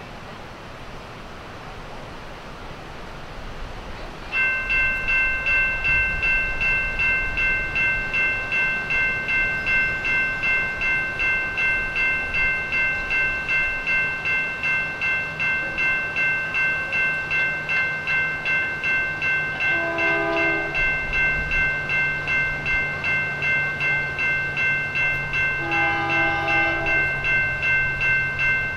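A railroad crossing warning bell starts about four seconds in and keeps ringing evenly, a little under two strokes a second. A train horn sounds two short blasts later on, and the low drone of an approaching locomotive grows underneath.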